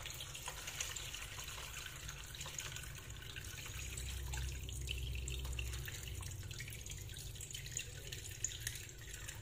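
Water poured in a steady stream from a plastic jug into a stainless steel pot over seared pork ribs, splashing as the pot fills with about a litre of water for the soup broth.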